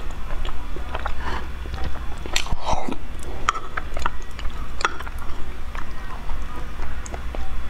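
Close-miked eating sounds from a thick, stringy starch jelly: slurping and wet mouth smacks with a scatter of sharp clicks and taps, over a steady low hum. The longest slurp comes about two and a half seconds in.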